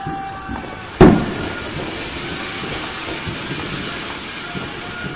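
Ground firework fountain spraying sparks with a steady hiss, after a sharp bang about a second in.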